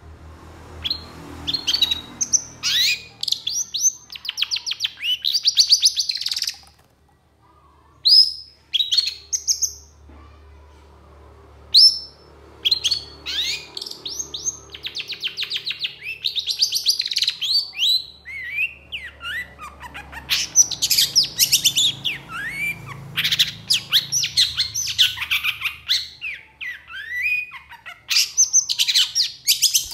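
Long-tailed shrike singing in long bursts of rapid rattling trills and sharp, scratchy notes, pausing briefly twice.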